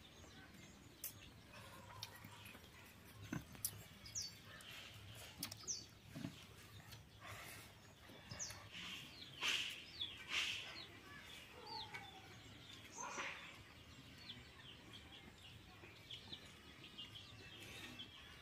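Birds chirping faintly in short, scattered calls over a quiet background, with a few brief louder sounds about halfway through.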